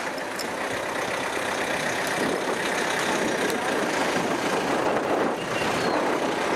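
Steady rushing noise of a slowly moving vehicle, as heard from a camera held out of its open window, swelling a little about two seconds in.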